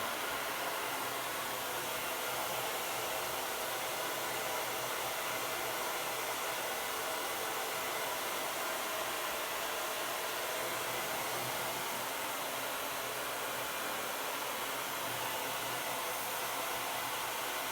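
Hair dryer running steadily on its hot setting, blowing on a dried-out refrigerator door gasket to soften it so it reseals.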